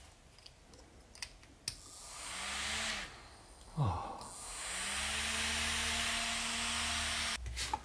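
Small high-speed DC motor (Circuit Cubes High Speed Motor Cube) spinning a little plastic propeller, after a few light plastic clicks as the cubes are snapped together. The whir with rushing air rises for about a second, winds down briefly, then spins up again to a steady whir for about three seconds and cuts off suddenly near the end.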